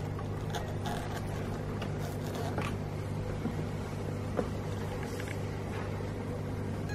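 Steady low hum of aquarium equipment, with a few faint scrapes and clicks.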